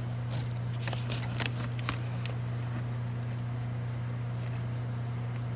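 Small plastic parts of an in-line light switch being handled during reassembly: a few light clicks and rustles in the first two seconds. A steady low hum runs throughout.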